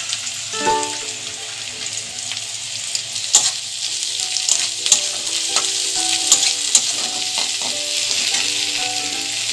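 Chopped onion, capsicum and garlic sizzling in hot vegetable oil in a kadai, stirred with a metal spatula that clicks against the pan now and then.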